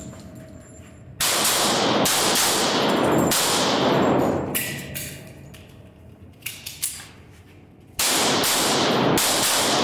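Pistol shots fired in strings, each crack followed by heavy echo in an indoor range. The first string starts about a second in and runs for about three seconds. After a pause with a couple of light clicks, another string begins near the end.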